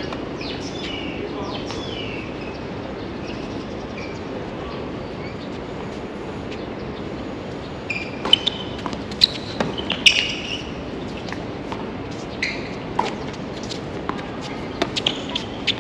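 Tennis ball being struck by rackets and bouncing on a hard court during a rally, a series of sharp hits starting about halfway through. Birds chirp in the first half over a steady background noise.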